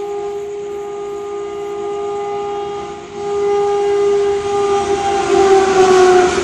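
WAP4 electric locomotive at speed sounding one long, steady horn note. About three seconds in the horn breaks briefly, then comes back louder. Near the end its pitch drops as the locomotive passes, and the rush of the train rises.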